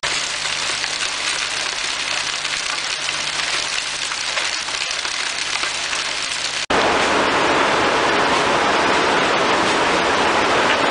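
Coal washing plant machinery running with a steady low hum under a rushing noise. About two-thirds through, the sound cuts to a louder, even rushing and hissing of water and wet coal moving on the plant's conveyor.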